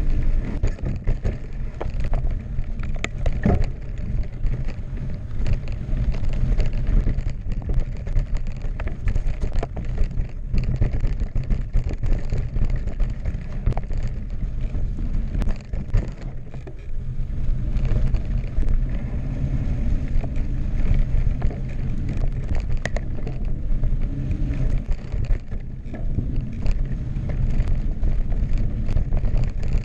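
Wind buffeting a GoPro microphone as a Specialized Enduro carbon mountain bike rolls fast down a dry dirt and rock trail, with tyres crunching and the bike clattering and clicking over bumps and stones.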